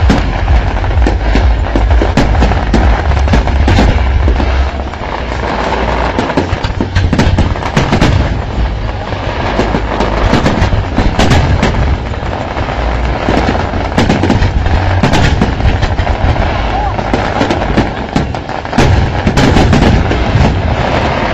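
Aerial fireworks display with many shells bursting in quick succession, a dense run of bangs and crackles, with crowd voices underneath.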